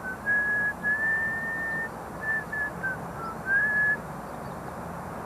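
A person whistling a tune: a string of clear notes at differing pitches, some held for nearly a second, some short, with one note sliding up about three and a half seconds in.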